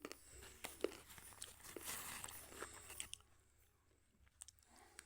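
A person biting and chewing slate pencil, close up: a dense run of sharp crunchy clicks for about three seconds, a short pause, then a few more crunches near the end.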